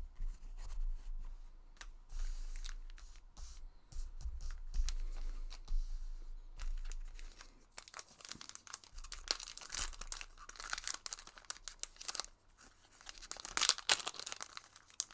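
Foil booster pack wrappers crinkling and being torn open, with cards being handled; the crackling rustle grows loudest about ten seconds in and again near the end.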